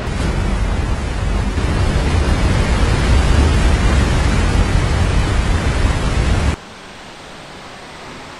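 Loud rushing of a large waterfall and its plunging whitewater, a dense rush with a heavy low rumble. It cuts off suddenly about six and a half seconds in, leaving a much quieter steady rush of the falls heard from a distance.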